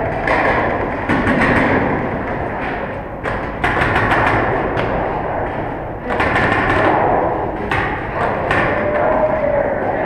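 Paintball markers firing on the field: sharp cracks and thuds in irregular clusters of shots, over a steady background din.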